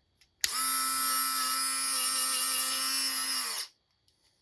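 Warrior corded rotary tool switched on, its small electric motor running at a steady high whine for about three seconds, then winding down in pitch as it stops.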